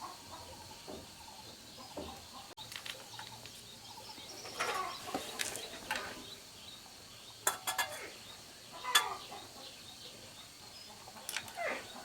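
Birds calling, with short falling calls, and a few sharp clicks or taps in between.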